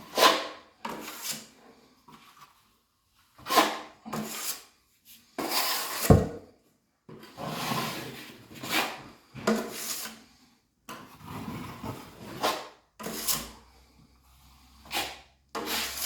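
Metal drywall knife scraping joint compound across a wall patch in about a dozen short strokes, unevenly spaced, with a sharper knock about six seconds in.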